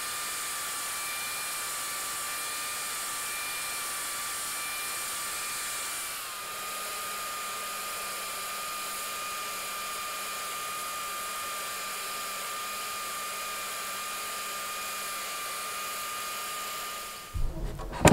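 Electric power tool motor running steadily with a high whine, changing slightly about six seconds in and stopping just before the end, followed by a few knocks.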